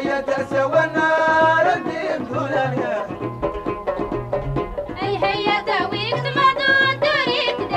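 Moroccan Amazigh folk music: plucked lotar lutes over a steady low drum beat, with a wavering singing voice that comes in strongest about five seconds in.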